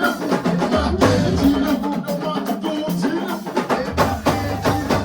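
Music track with a busy drum and percussion beat over a bass line and other instruments.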